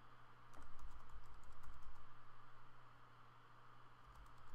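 Typing on a computer keyboard: a quick run of keystrokes that thins out past the middle and picks up again near the end, over a steady low hum.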